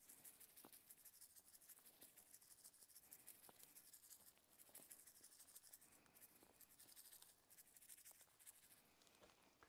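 Near silence: a faint steady hiss with a few faint, scattered ticks and rustles.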